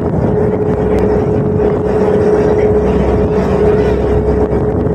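Passenger ferry's engine running steadily underway: a constant drone with a steady mid-pitched whine over it.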